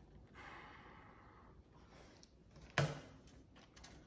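A long breathy sigh, then a single sharp knock about three seconds in and a couple of faint clicks, from hands and tools handling the opened cassette deck.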